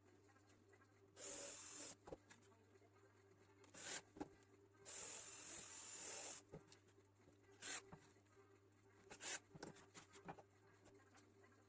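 Irregular short rubbing or scraping strokes, each lasting from a moment to about a second and a half, over a faint steady hum.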